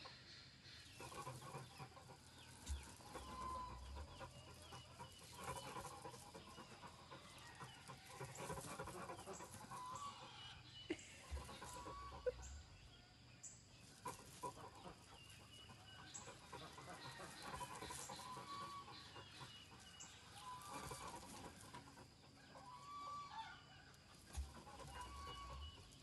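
Chickens clucking faintly, short calls every second or two, with a few soft low thumps.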